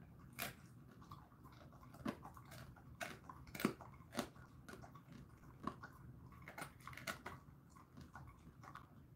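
A Jindo dog crunching on a dried chicken foot: a run of sharp, irregular crunches as he chews, the loudest a little over three and a half seconds in.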